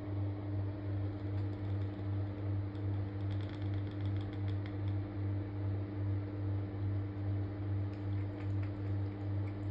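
A steady low electric motor hum that throbs two or three times a second, with faint light ticks over it.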